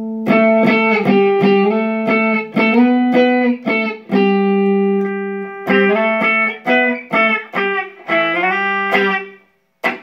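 Electric guitar played through a Line 6 Flextone III combo amp: a run of picked single notes and chords, some left ringing, with the playing stopping near the end.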